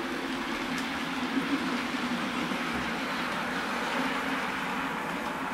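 Model railway diesel multiple unit running along the track: a steady whirr and rumble from its motor and wheels on the rails, with a couple of light clicks about a second and a half in.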